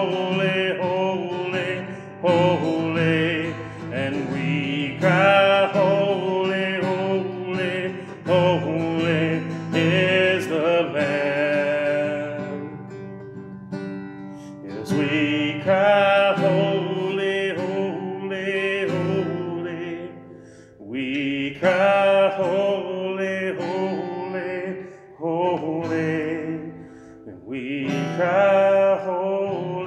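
A man singing a slow worship song while strumming a steel-string acoustic guitar. The voice drops out briefly about halfway through, leaving the guitar alone, then comes back in.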